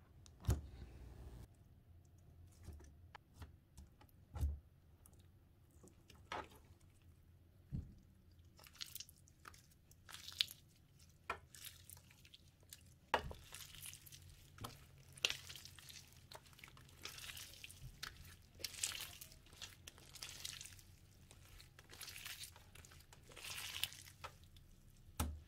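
Hands pressing, stretching and folding Goooze B-Day Cappuccino slime, a soft, oozy slime full of sprinkles. It makes faint, irregular sticky clicks and small pops, which give way in the second half to longer, crackly squelches.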